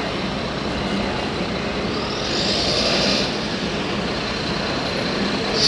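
Whine of an RC model truck's electric motor, rising and then falling away about two seconds in, over steady outdoor background noise; a short hiss near the end.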